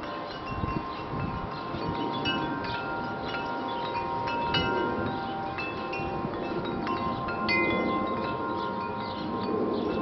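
Wind chimes ringing, struck at irregular moments. Several pitches sound together, and each note rings on for a few seconds.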